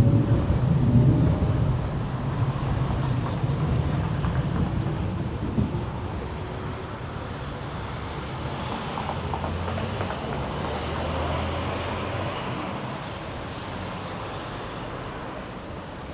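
Street traffic: a heavy vehicle passes close by, its low rumble fading away over the first several seconds, with a short knock partway through, then steadier background traffic noise.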